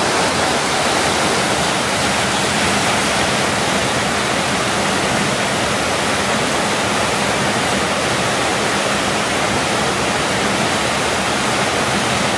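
Whitewater rapids rushing, a steady, unbroken noise with no pauses or distinct events.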